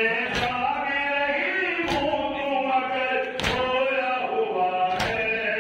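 Voices chanting a noha, a Shia mourning lament, in long held sung lines. Four sharp beats fall in even time, about one every second and a half: hands striking chests in matam.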